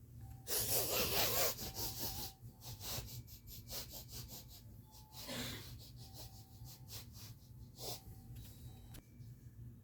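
A lion sniffing and snuffling: one loud, breathy blow about half a second in, then a string of short, uneven sniffs with a couple of longer draws.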